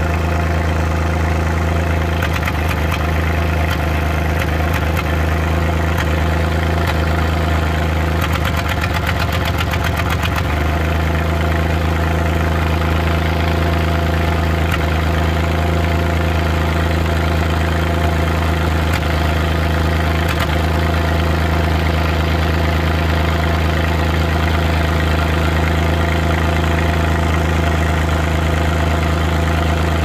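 Suzuki Multicab's F6A three-cylinder engine idling at the tailpipe, broken by irregular "tak... takatak" pops: a random misfire. The pops come singly every few seconds, with a rapid stutter of them about nine seconds in.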